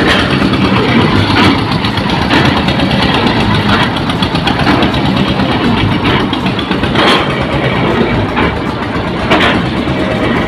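Engine of a truck-mounted borewell drilling rig running steadily and loudly, with a few sharp knocks from the rig.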